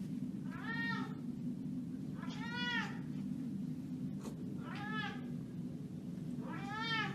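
Domestic cat meowing four times, about every two seconds; each meow rises then falls in pitch. A steady low hum runs underneath.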